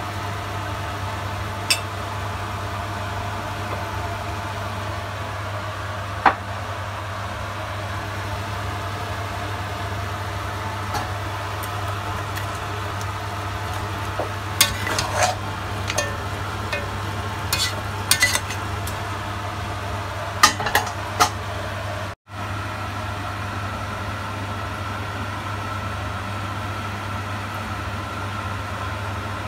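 Lamb pieces sizzling in a pot while a spatula stirs them, scraping and knocking against the pot in a run of sharp clicks midway through, over a steady low hum.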